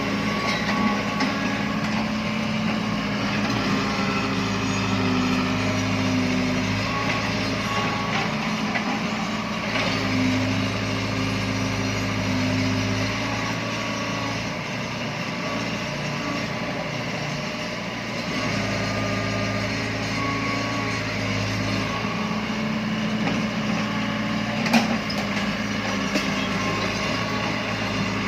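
Heavy diesel earthmoving machinery running, its engine note swelling and easing every few seconds as the machines work under load, with a sharp knock near the end.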